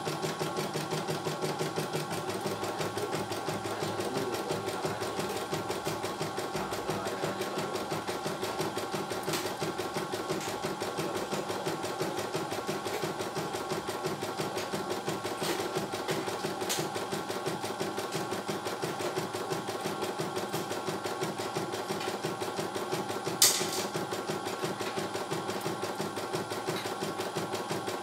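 CNY E900 computerized embroidery machine stitching a design, its needle running in a fast, steady rhythm. One sharp click about three-quarters of the way through.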